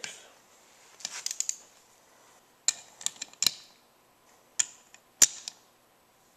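Torque wrench tightening camshaft bearing cap bolts to about 10 newton metres: a few light ratcheting clicks, then a series of sharp separate metallic clicks.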